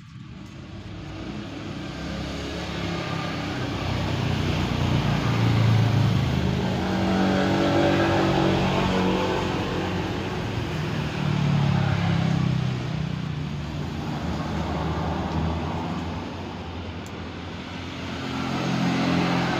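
Road traffic: motor vehicles going by, their engine noise swelling and fading several times.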